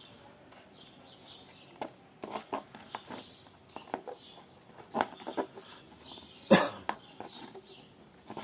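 Thin plastic bicycle mudguard being flexed and rolled by hand: a scattered series of crackles and pops, the loudest about two-thirds of the way through. Faint bird chirping runs behind.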